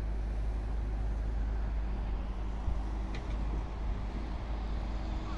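Steady low outdoor rumble with no clear single source, and a faint short high note about three seconds in.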